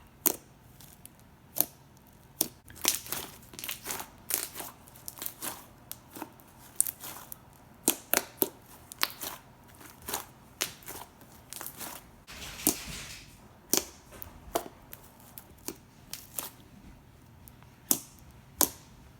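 Overactivated clear slime being kneaded and pulled apart by hand, giving irregular sharp pops and clicks as it tears, with one longer crackle about two-thirds of the way through.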